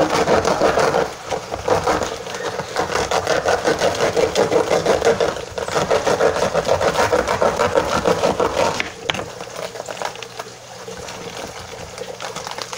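Dry, brittle loofah gourd skin crackling and tearing as it is cut and peeled away from the fibre with a knife, dense and continuous for about nine seconds, then a sharp click and quieter scraping.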